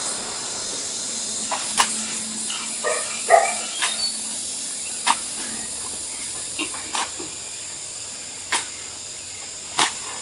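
Garden hoe striking and scraping loose soil, a sharp stroke about every one to two seconds. A dog barks twice, briefly, about three seconds in.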